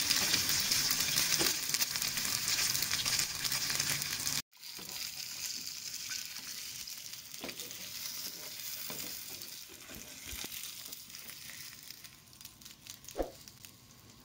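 An egg frying in oil in a frying pan, sizzling and crackling. The sound breaks off for a moment about four seconds in, then comes back quieter and fades away near the end, with a few sharp pops.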